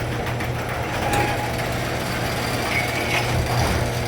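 A sectional garage door running on its rollers and track with a steady motor hum, on a test run after its torsion spring was rewound the opposite way.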